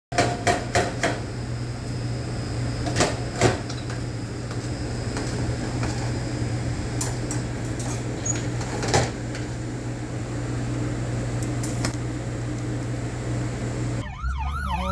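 A steady low hum of a running machine, with a scattering of sharp clicks and knocks, most of them in the first few seconds and one at about nine seconds.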